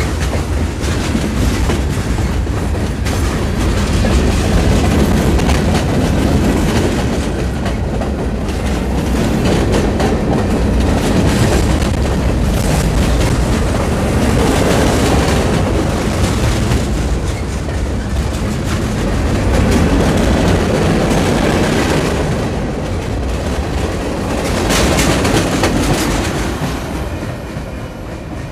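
Freight train cars rolling past at close range: wheels rumbling on the rails and clicking over the rail joints, the sound swelling and easing every several seconds.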